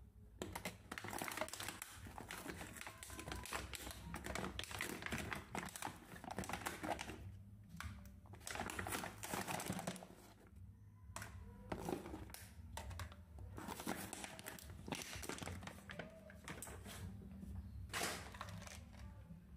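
Clear plastic packaging crinkling and rustling as hands pull it off a carded toy accessory set, an irregular crackle with a couple of short pauses.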